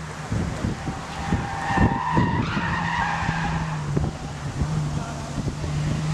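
Ford Falcon sedan's engine pulling steadily as it corners on a track, with its tyres squealing for about two seconds starting a little over a second in.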